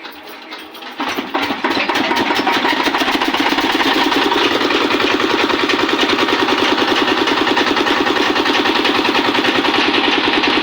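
An engine starts about a second in and then runs steadily and loudly with a fast, even pulse.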